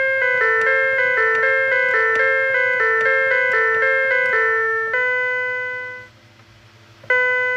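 Background music: a quick melody of short, ringing struck notes that fades out about six seconds in, followed by a fresh set of notes struck near the end.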